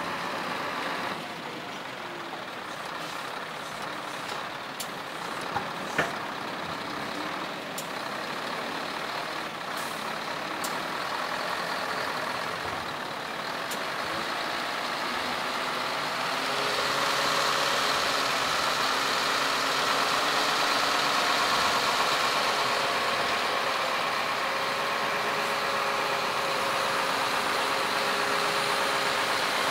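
Scania R500 V8 hooklift truck running as its hook arm pulls and lifts a steel container onto the truck. A few sharp metal knocks come in the first half, and about halfway through the sound grows louder and steadier, with a held whine as the container is raised.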